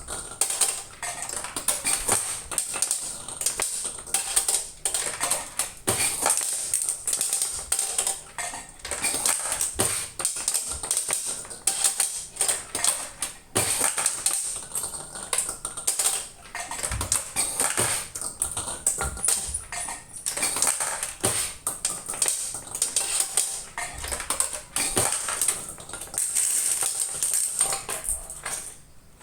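A repaired machine being test-run, making a dense, irregular mechanical clatter of rapid clicks.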